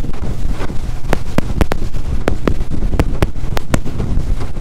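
Small aluminium boat running at speed across choppy water: the hull slaps against the chop in many sharp, uneven knocks, about three a second, over a steady low outboard drone and wind buffeting the microphone.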